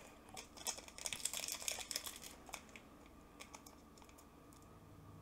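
Foil wrapper of a Pokémon card booster pack crinkling in the hands as it is picked up and gripped, a quick run of small crackles over the first two or three seconds, then a few faint ones.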